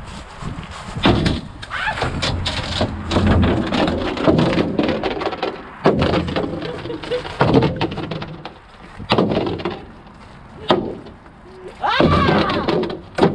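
A wooden log striking a thick glass windshield pane again and again: several heavy blows at irregular intervals, each with the crack and crunch of breaking glass.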